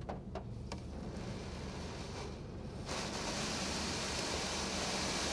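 High-pressure water jets of a Mark VII ChoiceWash XT touchless car wash spraying the car, heard from inside the cabin over a low hum. A few light taps come in the first second, then about three seconds in the spray reaches the car and a loud steady hiss sets in.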